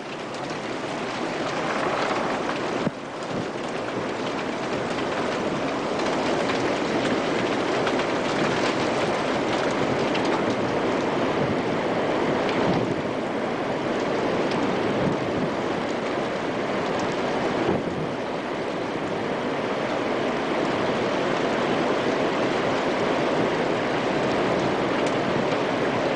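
Steady rushing of storm wind and rain on a camcorder microphone, swelling over the first few seconds.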